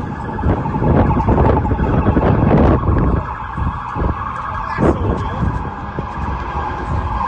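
Emergency vehicle siren sounding continuously, over the rumble of handling and wind noise from a phone microphone being carried while walking, with a sharp knock about five seconds in.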